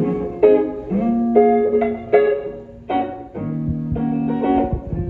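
Guitar playing the instrumental intro of a song, with a fresh chord struck about every half second to a second.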